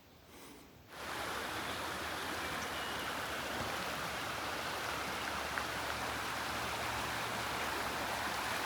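Stream water rushing steadily, cutting in abruptly about a second in.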